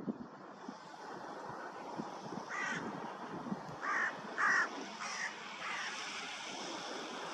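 A crow cawing, about five harsh caws in a loose run, the loudest two near the middle, over a steady hiss.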